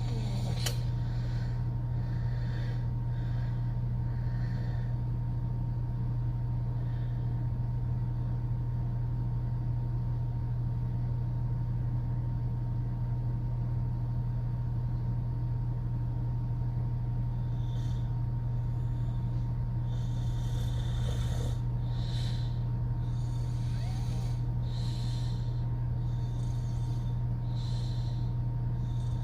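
A woman snoring through an open mouth: breathy snores and snorts, a few at first, then coming close together, about once a second, in the last ten seconds. A steady low hum runs underneath throughout and is the loudest thing.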